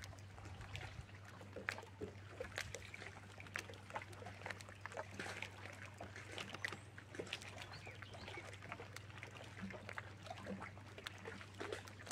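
Small waves lapping against a boat hull in many small, irregular splashes and clicks, over a steady low hum.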